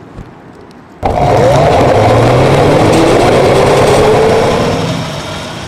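Electric drive of a converted Baja Dirt Bug mini bike under hard acceleration: a whine that climbs in pitch over a loud rushing noise. It starts abruptly about a second in and eases off near the end.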